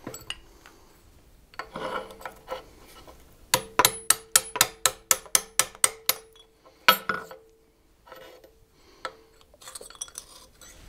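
Small steel hinge parts clinking against a steel forming block and press table. About three seconds in comes a quick run of about a dozen sharp, ringing metal taps, roughly five a second. A single clink follows shortly after, amid quieter handling of the metal.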